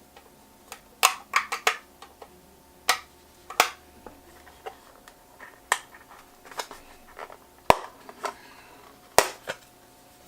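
Irregular sharp clicks and taps of a small tool and parts being handled inside an open 2012 MacBook Pro, about a dozen spread through the stretch.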